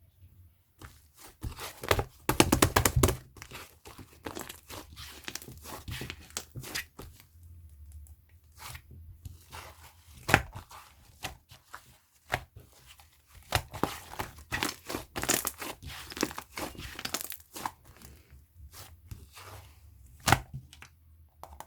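A firm, jiggly slime being squeezed, stretched and pulled apart by hand, giving sticky tearing and crackling pops in bursts, the loudest burst about two to three seconds in.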